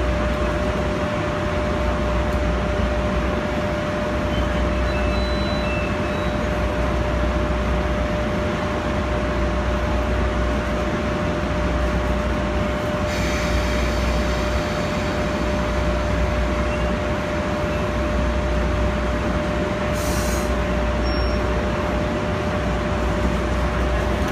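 Electric locomotive standing at the platform with its equipment running: a steady deep hum with a constant high tone. A hiss joins about halfway through, and a short, sharper hiss comes near the end.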